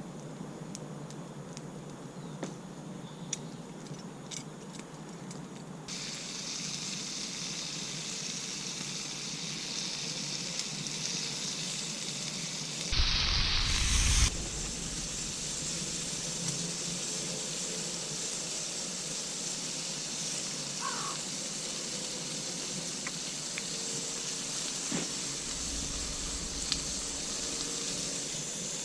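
Meat sizzling in a frying pan over a wood campfire: a steady hiss that comes in about six seconds in, with light crackles from the fire before it. Just before the middle, a loud rush of noise lasts about a second and a half.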